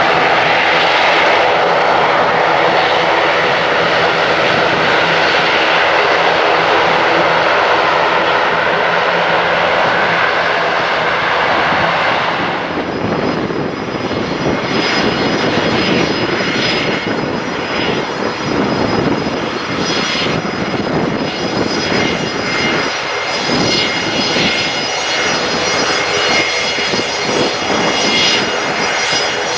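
Jet airliner's engines, loud and steady. About twelve seconds in, the even roar gives way to a lower, rougher rumble with a thin high whine on top.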